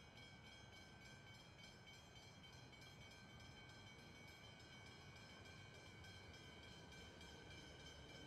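Faint sound of a Siemens electric suburban train approaching along the platform: a low rumble with several steady high whining tones, slowly growing louder.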